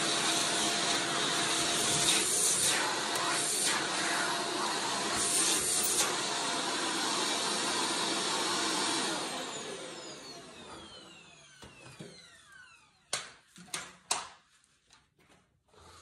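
Shark upright vacuum running on a hard floor, picking up spilled dirt. It is switched off about nine seconds in, and its motor whine falls away as it spins down. A few sharp clicks and knocks follow near the end.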